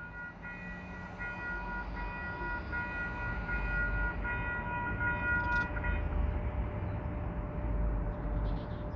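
Diesel freight locomotive horn sounding in several long blasts, cutting off about six seconds in, over the low rumble of the locomotives, which grows slightly louder.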